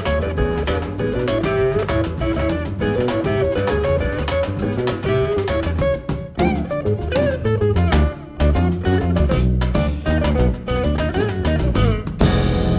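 Jazz band playing: busy guitar lines over a drum kit and bass. About 12 seconds in the band lands on a loud final hit that rings on.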